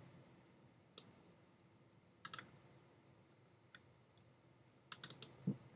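Computer mouse clicks over a faint low hum: one about a second in, a double click a little after two seconds, and a quick run of three near the end.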